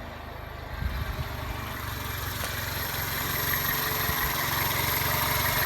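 1999 Toyota Corolla's 1.8-litre four-cylinder engine idling steadily, growing gradually louder from about a second in, with a few short knocks around then.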